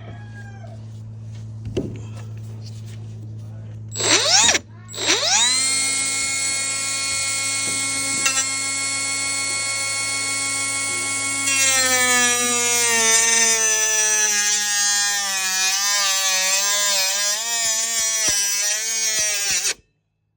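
A high-speed cutoff tool with a cutoff wheel spins up with a rising whine about four seconds in, then runs steadily. Later its pitch dips and wavers as the wheel is pushed into the plastic cowl, and it stops suddenly near the end. A steady low hum is heard before the tool starts.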